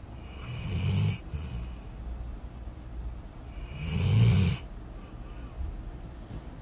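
A sleeping dog snoring: two slow snores, about a second in and again about four seconds in, each a low rumble with a breathy hiss.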